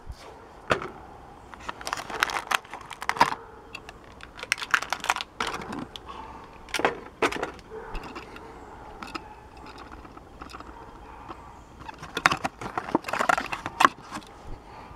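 Clear plastic blister pack and cardboard card being torn open by hand to free a diecast toy car: bursts of crackling, clicking plastic. It goes quieter for a few seconds past the middle, then comes back busier near the end.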